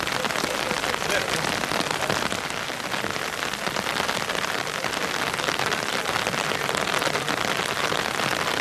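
Steady patter of falling rain, a dense even hiss of fine drops.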